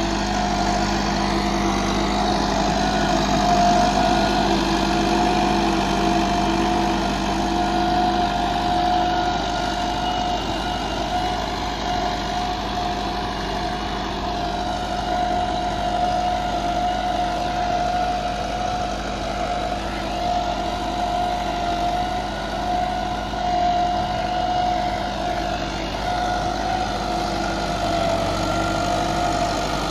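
Massey Ferguson 375 tractor's four-cylinder diesel engine running steadily under load while pulling a tine cultivator through the soil.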